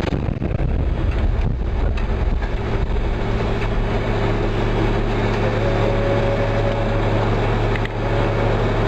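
A motor vehicle's engine running steadily: an even low hum with road or engine noise over it.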